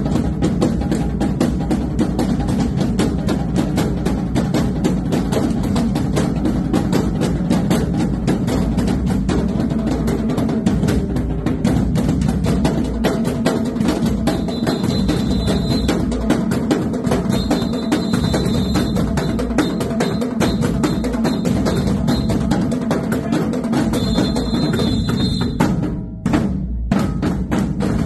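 Marching drumline of snare drums and bass drums playing a fast, loud cadence. Near the end the drumming breaks into short gaps punctuated by a few separate hits.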